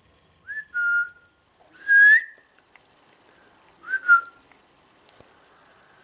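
A person whistling three short high notes about a second and a half apart, each sliding up and then holding; the middle one is loudest.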